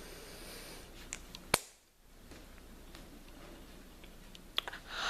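One sharp knock about a second and a half in, the Atomic Beam flashlight's ridged head struck against a shoulder, after which the background drops out abruptly; a short breath or sniff near the end.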